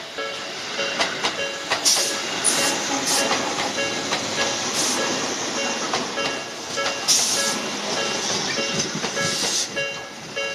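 Slow-tempo Nikko-type electronic level-crossing alarm ringing in an even repeating pattern while a train runs over the crossing. The train brings a rushing rumble and several short bursts of high hiss.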